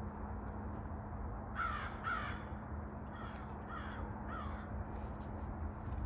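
A bird gives five harsh, cawing calls: two close together about one and a half seconds in, then three evenly spaced about half a second apart.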